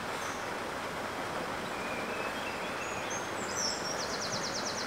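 Steady wind noise with small birds chirping, ending in a quick high trill in the last second.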